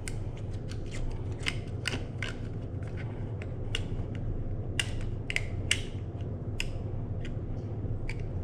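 Irregular plastic clicks and ratcheting of a nylon zip tie being threaded and pulled tight by hand, over a steady low hum.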